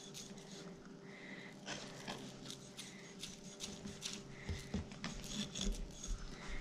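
Kitchen knife scoring the skin of a whole trout on a cutting board: faint slicing and scraping strokes with small clicks, over a steady low hum.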